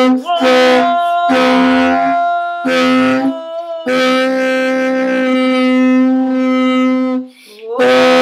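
An animal horn blown in a run of short notes, then one long steady note from about four seconds in that cuts off near the end before a new note starts. A woman's voice sings a wavering wordless line over the horn.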